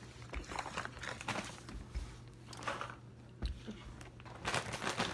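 Foil chip bags crinkling and rustling in irregular bursts as a chip is picked out of one, busier near the end.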